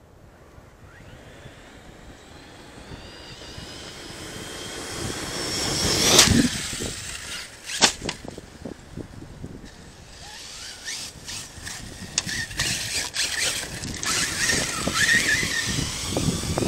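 Arrma Kraton 6S RC monster truck running: its brushless electric motor whines, rising in pitch to its loudest about six seconds in. A sharp crack follows about two seconds later, then more rising and falling whine with a run of clicks and knocks near the end.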